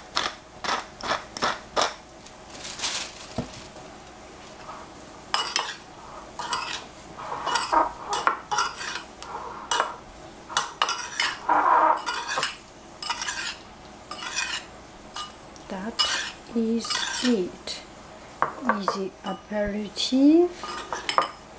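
Metal spoon clinking and scraping against a ceramic bowl as a cucumber and olive salad is stirred and tossed, in many irregular clinks.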